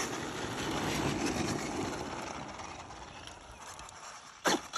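Traxxas Maxx Slash RC truck running at high speed, with its electric motor and tyre noise fading steadily as it pulls away. A short, sharp sound comes near the end.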